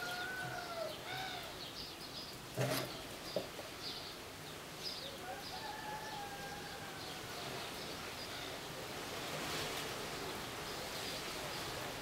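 Birds chirping, with short repeated high chirps and a few drawn-out arching calls, and a single sharp knock about two and a half seconds in.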